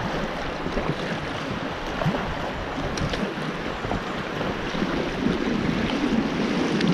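Steady rush of fast-flowing river water around a kayak, with wind on the microphone.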